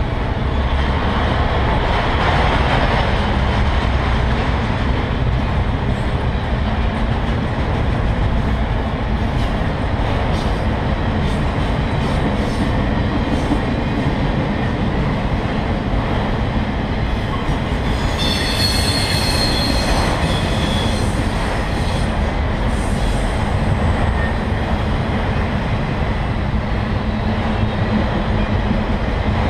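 Freight train of autorack cars rolling past, a steady noise of steel wheels on rail. About two-thirds of the way through, a wheel squeals briefly with a high ringing tone.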